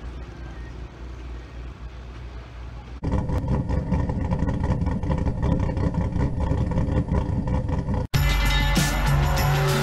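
Faint, even track noise for about three seconds. Then a logo jingle of music with a steady beat runs for about five seconds. Near the end a drift car's engine comes in loud and revs, rising in pitch.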